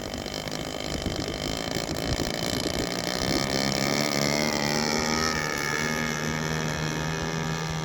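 Large model airplane's engine and propeller opening up for takeoff: the pitch and loudness climb over the first three or four seconds, then hold steady at high throttle. The engine is brand new and still breaking in.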